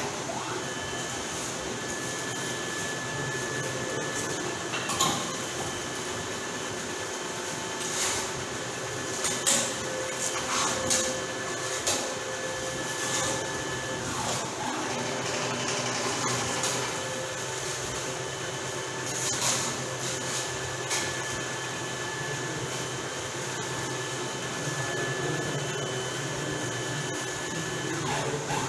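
Gantry concrete 3D printer running: a steady motor hum with thin, high whines that drop out about halfway through and come back a couple of seconds later, and a few sharp clicks and knocks scattered through.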